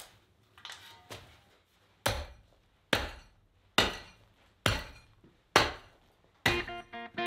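Short-handled hand tool chopping into hard-packed dirt, a sharp strike about once a second. Guitar music comes in near the end.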